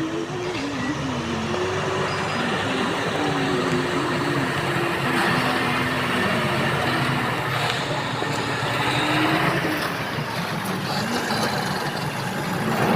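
Heavy diesel construction machinery running steadily, its engine pitch rising and falling as it works under load.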